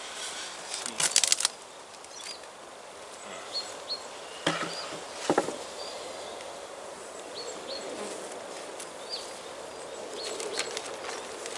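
Honeybees humming at an opened hive, with a few sharp clicks and knocks from the hive being worked: a cluster about a second in and two more near the middle. Faint short high chirps are scattered through.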